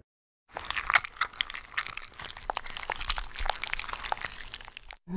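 Flesh Eating Zombie animatronic playing a dense crackling, crunching sound effect through its small speaker.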